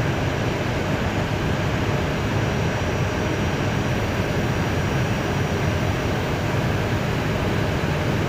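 Steady flight-deck noise of an Airbus A320 taxiing in with its jet engines at idle: an even rush with a low rumble underneath.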